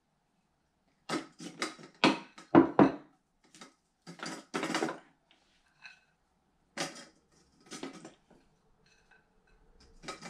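Frozen fruit chunks clattering as they are dropped one by one into the hard plastic feed chute of a Comfee masticating juicer: a quick run of knocks, then two more a couple of seconds later.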